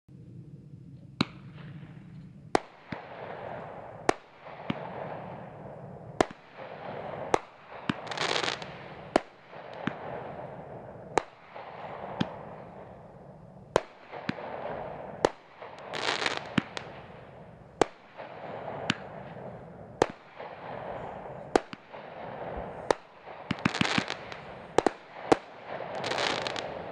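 Megabanger 'Delusional' multi-shot firework going off shot after shot: a sharp bang about every second or so, with crackling and fizzing between the bangs. Louder crackling bursts come about a third of the way in, about halfway and near the end, and a quick run of bangs comes shortly before the end.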